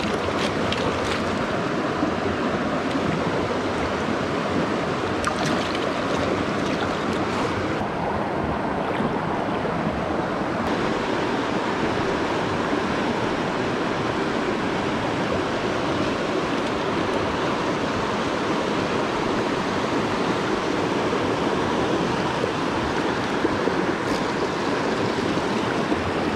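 Steady rush of fast river water pouring through rapids and around boulders.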